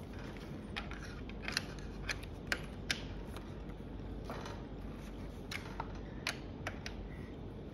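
Allen key turning a bolt on a bicycle's adjustable handlebar stem, tightening the side bolt: about a dozen small, sharp metallic clicks and ticks at irregular intervals as the key is seated and turned.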